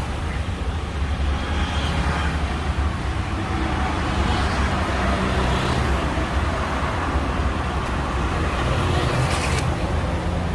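Steady street traffic noise with a continuous low rumble.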